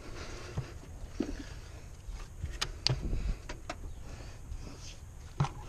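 Scattered light clicks and knocks, about half a dozen, from hands handling and seating a cast aluminum intake manifold and the hoses and wiring around it, over a low steady rumble.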